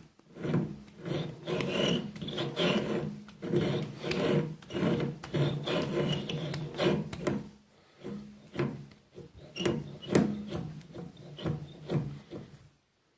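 Lathe cutting tool scraping across a cast-iron pulley that is being turned by hand. The scraping comes in a run of uneven strokes, with a short break a little past halfway and another near the end.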